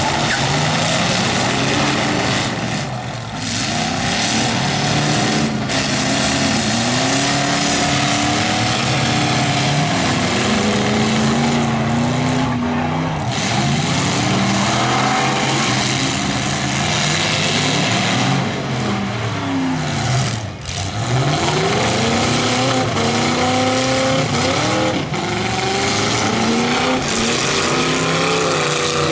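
Engines of several demolition derby cars revving up and down at once, loud, their pitches rising and falling over one another as the cars drive and ram in the arena.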